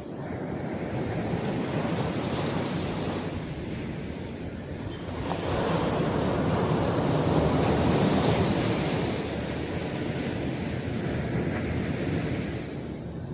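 Sea surf breaking on the shore: a steady wash of waves, with one big wave swelling about five seconds in and fading away near the end, and some wind buffeting the microphone.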